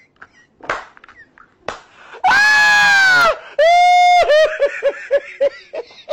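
A loud, high-pitched scream about two seconds in, then a second held shriek that breaks into rapid laughter, 'ha-ha-ha', fading away.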